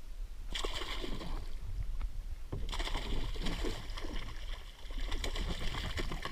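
Hooked blackfin tuna thrashing and splashing at the surface beside a kayak, in two spells: from about half a second in, then again after a short break near the two-second mark.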